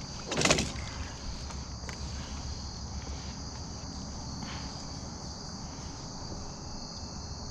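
Steady high-pitched chorus of insects such as crickets, trilling without a break, with one short loud noise about half a second in.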